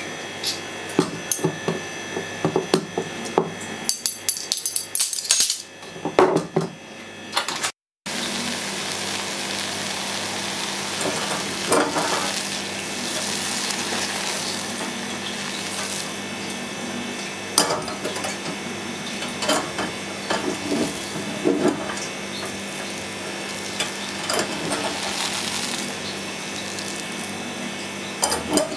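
A metal measuring spoon clinks and taps against a small ceramic-lined saucepan while seasonings are spooned in. After a cut at about eight seconds, a dark balsamic sauce bubbles steadily as it reduces in the pan, with occasional light knocks of the pan on the burner's wire grate.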